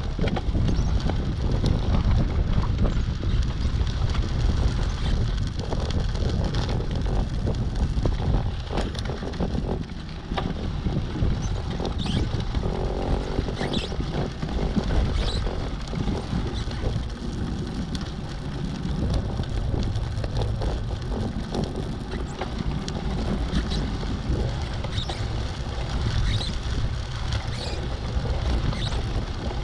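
Uneven low rumble of wind buffeting the microphone, with a few faint ticks.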